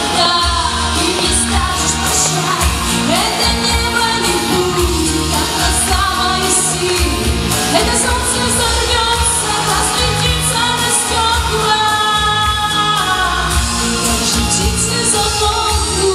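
A woman singing a pop song into a microphone over backing music with a steady beat.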